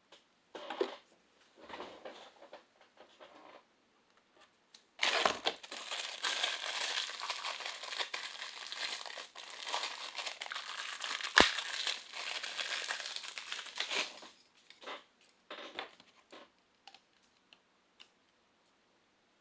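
Plastic packaging crinkling as it is handled: a few short rustles, then about nine seconds of continuous crinkling with one sharp click partway through, and a few scattered rustles and ticks near the end.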